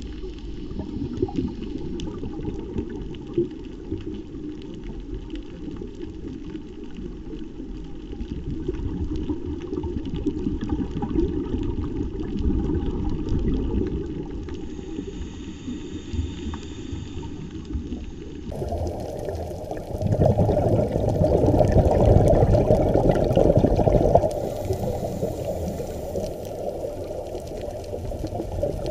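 Muffled underwater noise heard through a GoPro's waterproof housing, a steady low rumble of water. About two-thirds of the way through, a scuba regulator's exhaled bubbles burble loudly for about four seconds.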